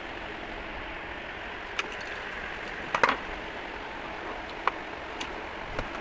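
Sharp clicks and clinks of a plastic table-fan blade and a metal rod being knocked together as the blade is worked off the motor shaft, about five in all, the loudest a double knock about three seconds in. A steady background noise runs under them.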